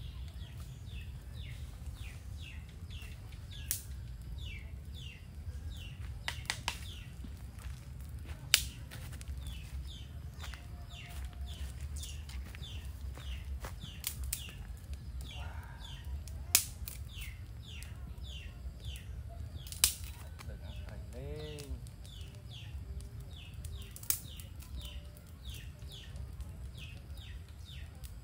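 Small wood fire crackling, with sharp pops every few seconds, over a steady run of short, high, falling chirps repeated about twice a second.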